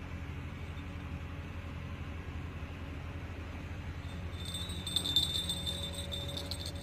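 Small bell on a fishing rod tip starts jingling rapidly about two-thirds of the way in, shaken by a fish biting at the line. A steady low hum runs underneath.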